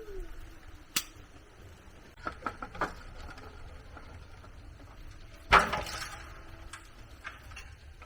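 Irregular knocks: a sharp click about a second in, a quick run of three or four knocks near the middle, and one louder knock with a short ringing tail a little after five seconds.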